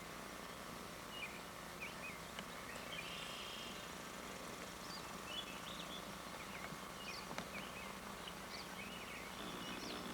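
Outdoor ambience of scattered short bird chirps and calls over a steady background hiss.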